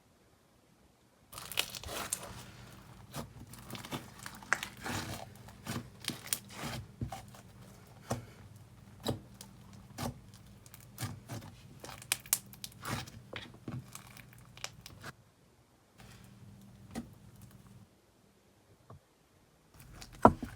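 Slime being squished and stretched by hand, making a dense run of crackles and small pops with sharper snaps. It starts about a second in and pauses briefly twice near the end.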